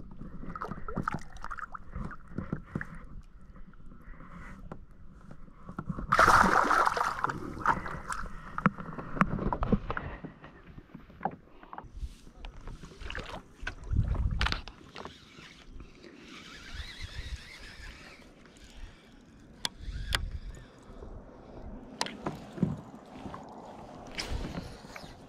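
Handling noise in a plastic fishing kayak: scattered knocks and clicks of gear against the hull, with a louder rush of noise lasting about a second, about six seconds in, and a low thump a little later.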